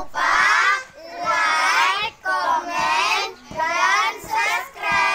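A group of children's voices calling out together in unison, in a run of short sing-song phrases about a second each with brief breaks between them.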